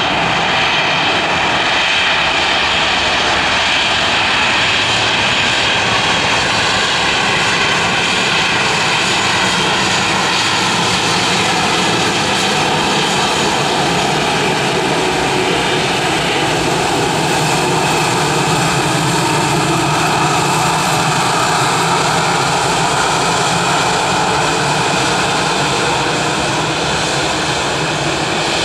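Airbus A320-family airliner's twin jet engines running at low taxi power: a steady whine over a broad rumble, the whine drifting slowly in pitch as the aircraft rolls past.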